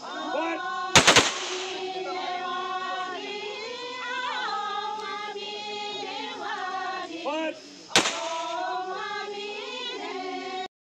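Military rifle volleys of a funeral gun salute: a squad of soldiers firing together twice, about seven seconds apart, each volley a sharp crack. A sung song plays throughout underneath.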